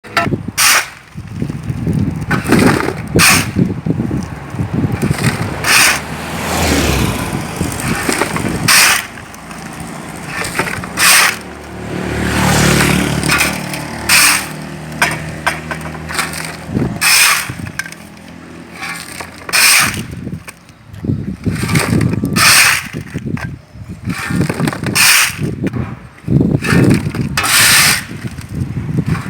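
Steel shovel scraping up construction rubble and tipping it out, in short harsh scrapes and clatters every one to three seconds.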